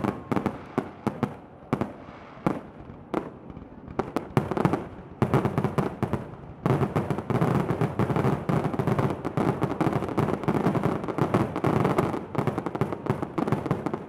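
Fireworks grand finale: aerial shells bursting one after another with sharp bangs and crackle. From about halfway through, the bursts come thicker, almost without pause.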